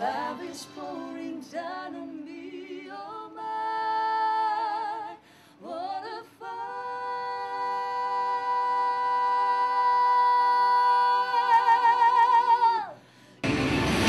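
A man and a woman singing a pop ballad duet into microphones, ending on one long held note that wavers with vibrato before it stops. Near the end the sound cuts abruptly to louder, fuller music.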